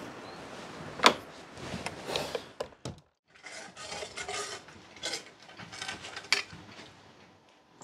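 Hard objects being handled: a sharp clink about a second in, then scraping and rubbing with a few more clinks, broken by a brief silence near three seconds.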